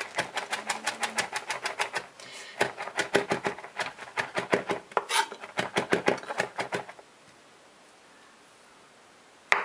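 Chef's knife rapid-chopping basil on a heavy polyethylene cutting board: a fast, even run of blade knocks on the board, several a second, that stops about seven seconds in.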